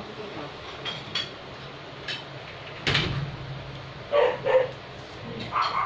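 A dog barks twice in quick succession about four seconds in. A single sharp knock comes a little more than a second before the barks.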